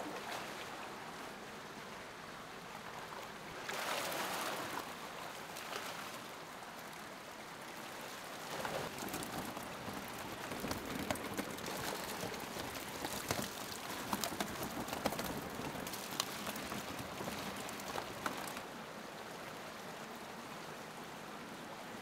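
Water splashing and running in a steady hiss, with a louder surge about four seconds in and a spatter of sharper little splashes from about nine to eighteen seconds in.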